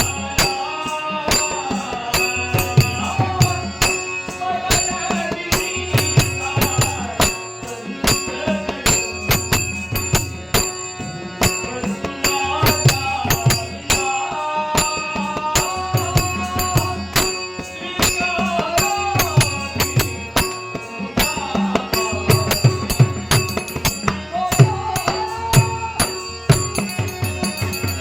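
Marathi devotional bhajan: a singer's melodic vocal line over pakhwaj drum strokes and jingling metal percussion keeping a steady rhythm, with held drone-like tones underneath.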